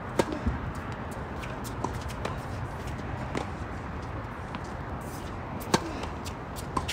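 Tennis balls struck by rackets and bouncing on a hard court: a sharp serve hit just after the start and another about six seconds in, with a few lighter pops of returns and bounces between.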